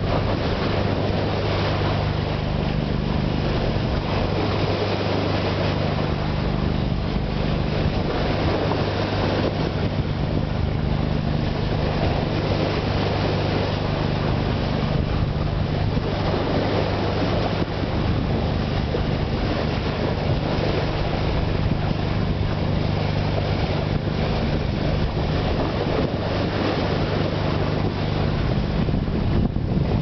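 A vessel under way at sea: the steady low drone of its engine under the rush of water along the hull beneath the bow, with wind buffeting the microphone.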